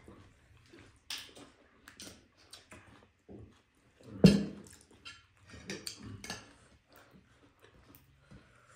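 Eating sounds: people chewing and working spicy noodles close to the microphone, in short irregular bursts, with one much louder sound about four seconds in.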